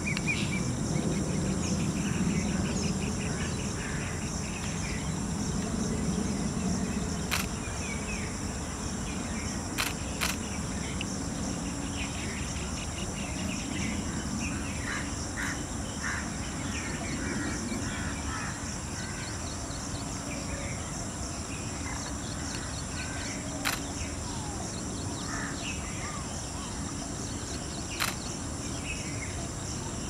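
Forest ambience: a steady high insect drone with scattered short bird chirps and calls, and a few sharp clicks.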